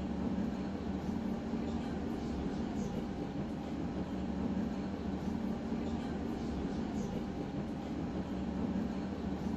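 Tram running, heard from inside the passenger car: a steady rumble of wheels on rails with a low hum that swells and fades several times.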